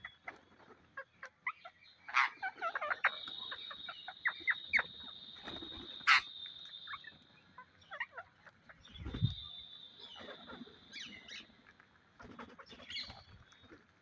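A flock of rose-ringed parakeets feeding, giving short scattered chattering calls and squawks, with a run of rapid calls a couple of seconds in. A steady high-pitched whine runs underneath for several seconds, stops briefly, then comes back.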